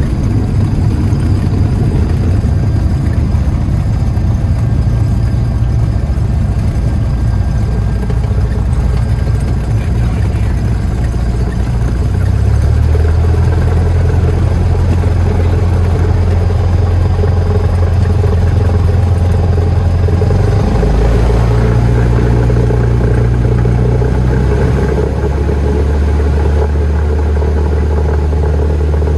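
Cessna 172's piston engine and propeller running at low power, heard from inside the cabin, as the aircraft taxis and lines up on the runway. The engine note steps up and gets louder about twelve seconds in, then shifts pitch again a few times.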